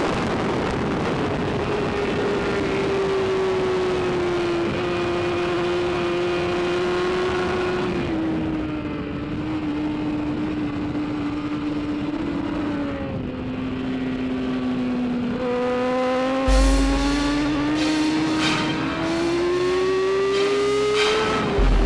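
On-board sound of a BMW S1000RR inline-four superbike engine held at high revs. The pitch sags slowly over several seconds, then climbs steadily again near the end as the bike drives out of a corner. Wind buffets the microphone with low thumps in the last few seconds.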